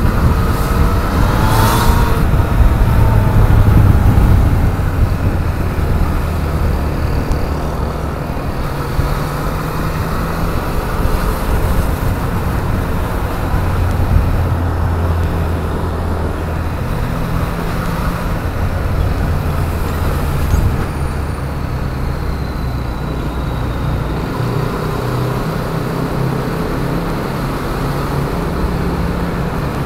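Yamaha MT-09 three-cylinder engine running at low speed in slow traffic, its note rising and falling as the throttle is worked, over a steady hiss of traffic noise. It is loudest in the first few seconds.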